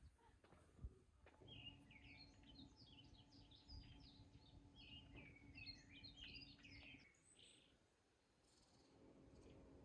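Faint birdsong: small birds chirping and twittering in quick, high notes, with a faint steady low hum underneath that stops about seven seconds in.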